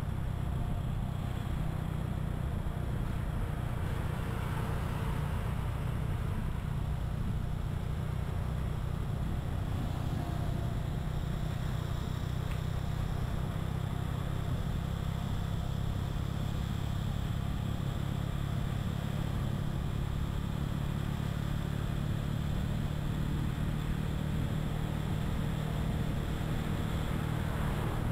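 Motorbike engine running at a steady speed, heard from on the bike, with wind and road noise over it.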